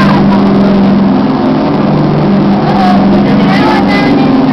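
A boat engine running at a steady, loud drone, with faint voices in the background.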